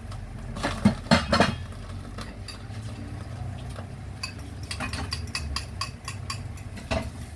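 Metal cooking utensil knocking and clinking against a pan, with a few louder knocks about a second in and a run of quick light clicks later on.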